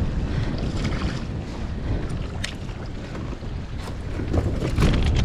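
Wind buffeting the microphone in a steady low rumble, with a few short scattered knocks and clicks.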